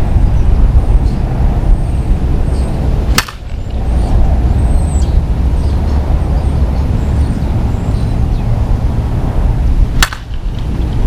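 A Dudley Lightning Bobby Nifong one-piece senior softball bat hits pitched softballs twice, each a single sharp crack, about seven seconds apart. A steady low rumble of wind on the microphone runs underneath.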